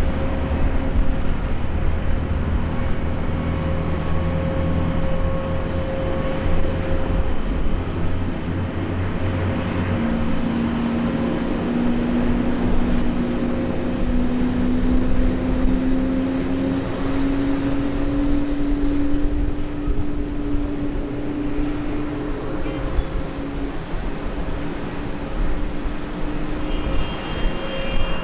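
Boeing 767-300ER twin jet engines running at low power as the airliner taxis, a steady rumble and whine. The engine tone creeps slowly up in pitch through the middle.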